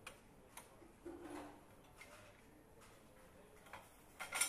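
Faint scattered clicks and taps of metal engine parts being handled at an assembly station, ending in a louder cluster of sharp metallic clicks just before the end.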